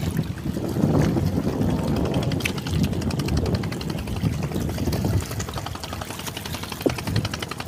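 Wind buffeting the microphone with a low rumble, and from about three seconds in a boat engine clattering in a fast, even rhythm, running at full throttle.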